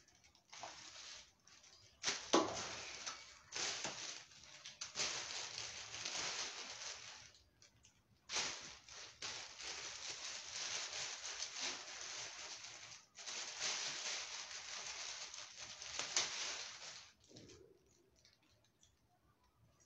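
Thin black plastic bin bag crinkling and rustling as it is handled, in several stretches of a few seconds with short breaks, stopping a few seconds before the end.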